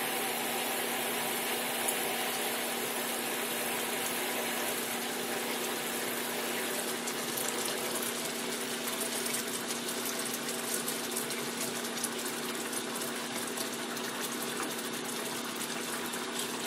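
Spiced yogurt curry gravy boiling in a non-stick kadai, a steady bubbling hiss over a steady low hum, with light crackles growing more frequent from about halfway.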